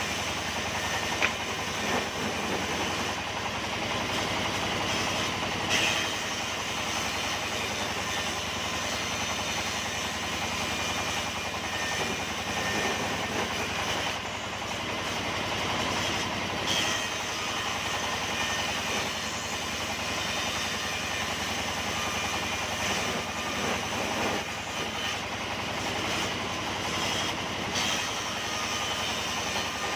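Sawmill machinery running steadily, a continuous mechanical drone with a few brief knocks.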